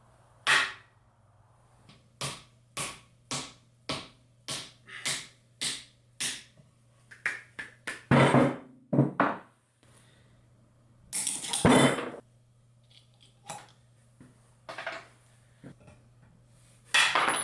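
Sharp knocks on the metal parts of a sawmill gearbox being taken apart, a steady run of about two taps a second for several seconds, then heavier clanks and clatters of metal parts. A steady low hum underneath.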